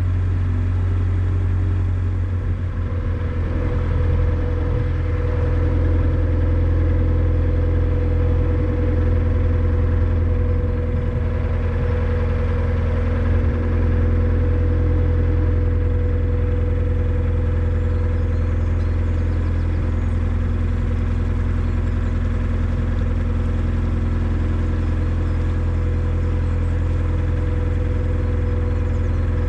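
Narrowboat's diesel engine running steadily while under way on the canal: a deep, even drone with a steady hum above it.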